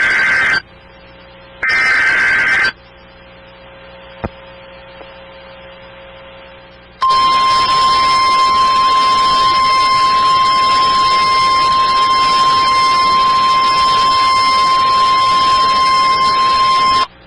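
Emergency Alert System SAME header data bursts, the shrill digital warble of the alert code: the end of one burst, then a full one about a second later. After a pause with a faint hum, the NOAA Weather Radio 1050 Hz warning alarm tone sounds as one steady, piercing tone for about ten seconds and cuts off abruptly, signalling that a warning message follows.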